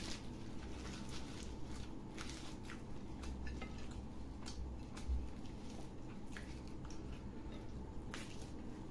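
A paratha being torn apart by hand and chewed close to the microphone, with scattered soft crackles and mouth sounds over a low steady hum.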